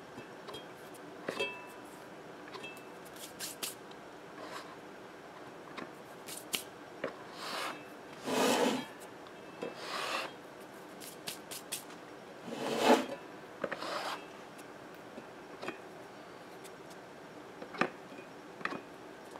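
Fingers rubbing and scraping old glue residue off the edge of a 32 cm Audax woofer during foam surround replacement. The sound comes as scattered short scrapes and clicks, with two longer scrapes about eight and thirteen seconds in.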